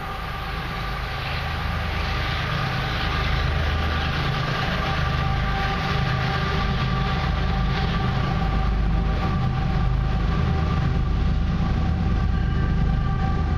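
Approaching freight train's lead diesel locomotives, CN 2887 and 3955: a deep engine rumble with a steady hum, growing louder over the first few seconds and then holding steady.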